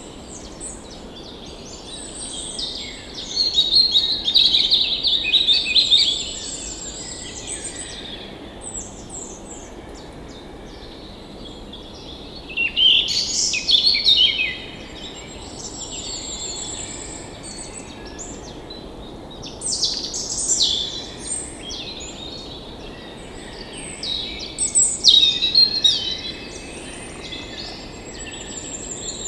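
Birds singing: a loud song phrase of one to three seconds comes four times, with thin high trills between, over a steady low background hiss.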